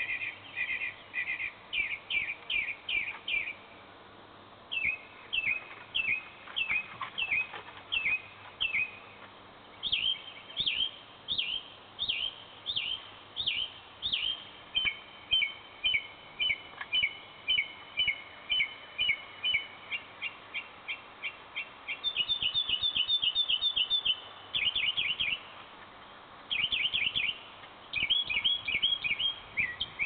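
Mockingbird singing: quick runs of repeated chirping notes, each phrase repeated several times before the bird switches to a new one, with a fast trill about three-quarters of the way through and a couple of brief pauses.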